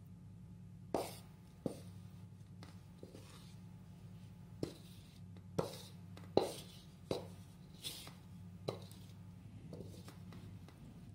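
Wooden spatula knocking and scraping against a metal pan as stir-fried vegetables are pushed out into a bowl: about eight sharp, irregularly spaced knocks over a steady low hum.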